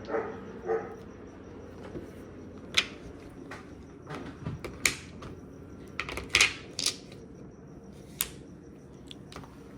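Mahjong tiles clacking, a series of sharp separate clicks as tiles are picked up and set down against each other and the table.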